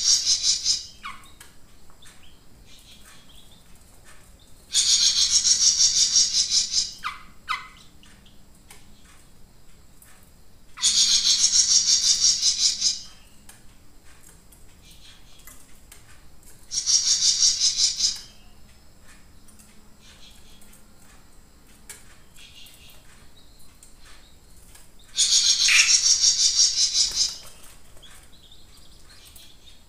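A caged jenggot mini songbird singing: a loud, high, rapid song phrase of about two seconds, repeated four times with pauses of several seconds between.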